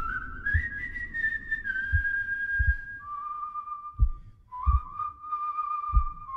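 A slow melody whistled one long note at a time, stepping up and down in pitch. Under it run low heartbeat-like thumps in pairs, about every two seconds.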